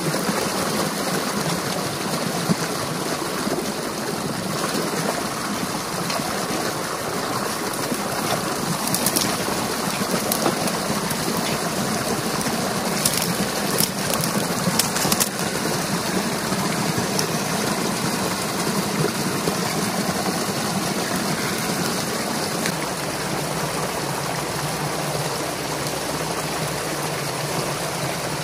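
Water rushing and splashing through a freshly opened breach in a beaver dam: a steady churning flow as the dammed water drains away.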